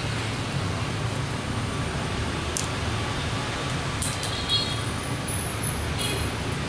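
Lakoni Fresco 130X oil-less air compressor running steadily, with a few faint clicks.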